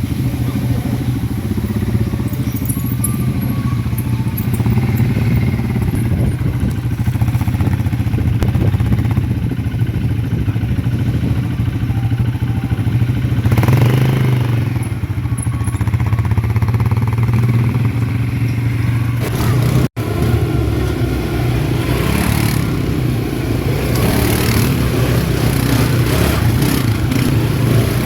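ATV engine running steadily at fairly low revs. The sound breaks off for an instant about two-thirds of the way through, and afterwards more rattling and clattering joins the engine.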